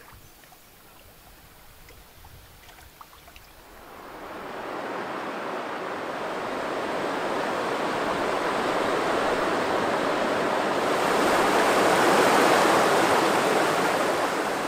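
Rushing whitewater of river rapids: faint at first, swelling loud from about four seconds in and easing a little near the end.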